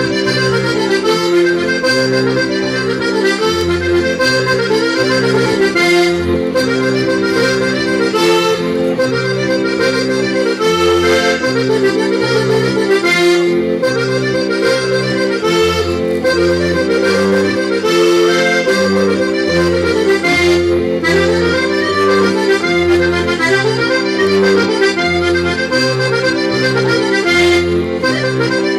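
Traditional Sardinian dance music played on accordion: a continuous lively tune over a steady, repeating bass-and-chord accompaniment.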